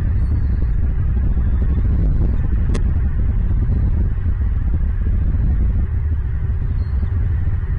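Steady low rumble, with a single sharp tick about three seconds in.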